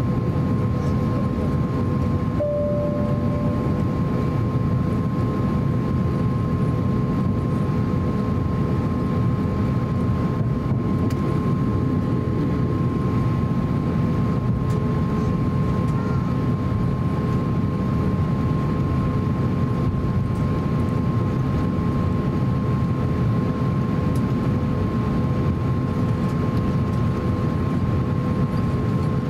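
Cabin noise of an Airbus A350-900 taxiing, its Rolls-Royce Trent XWB engines at low taxi power: a steady, even rumble with a steady high whine running over it.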